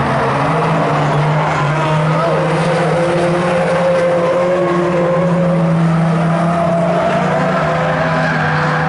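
Engines of a pack of small saloon race cars running flat out around an oval track, a steady loud drone of several overlapping engine notes.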